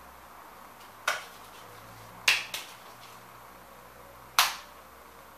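Four short, sharp snaps in a quiet room: one about a second in, a quick pair a little after two seconds, and one more past four seconds.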